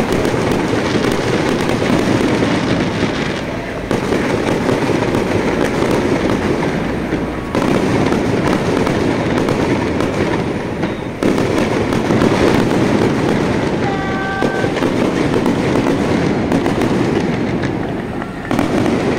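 Aerial fireworks display: a dense, continuous crackle and rumble of shell bursts, changing abruptly in level several times. A brief pitched tone sounds about three-quarters through.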